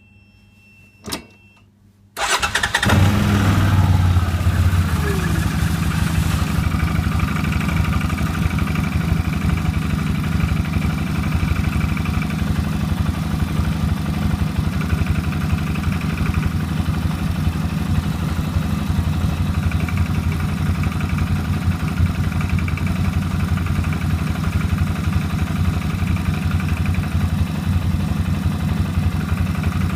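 CFMoto X8 ATV engine, after faint electronic beeps and a click, starts about two seconds in and settles to a steady idle. It idles with the extraneous engine knock that the owner is trying to find the cause of.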